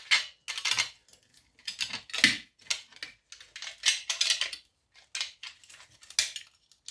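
Hand tools and small metal parts clicking, scraping and rattling in irregular bursts while an old electronic device is dismantled by hand and a part is worked loose.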